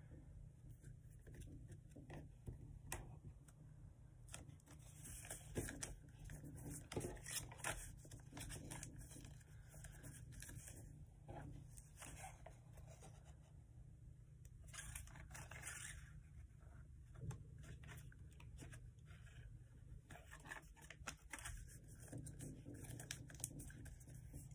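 Sheet of paper being folded and creased by hand: irregular crinkles, rustles and sharp crease crackles, over a faint steady low hum.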